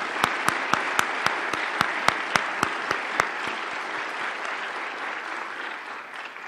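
Audience applauding, with one pair of hands clapping close and distinct about four times a second for the first three seconds; the applause then thins and dies away near the end.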